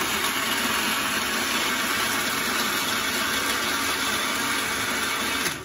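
Countertop blender running steadily at speed, blending a fruit milkshake; the motor cuts off near the end.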